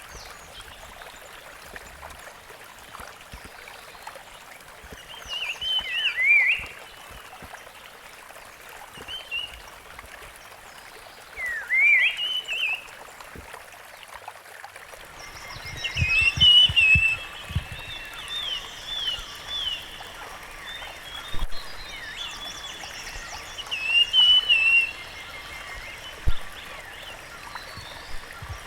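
Rusty-fronted barwing calling: short phrases that sweep up and down, given every few seconds, with a busier run of repeated notes about halfway through. A steady hiss runs underneath, and a few low knocks come in the middle.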